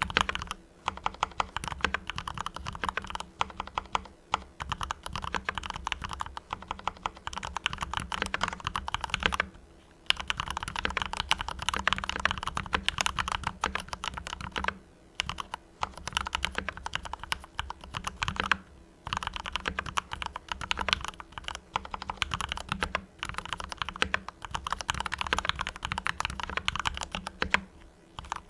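Typing on a Mars Pro mechanical keyboard with fully lubed Cherry MX Red linear switches: fast, dense key strokes in runs, broken by a few brief pauses.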